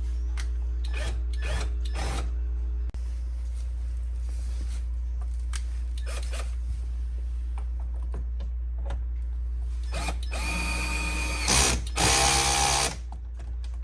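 Cordless drill-driver running in two short bursts about ten seconds in, the second louder, after a few light handling clicks: fastening one of the door's fasteners.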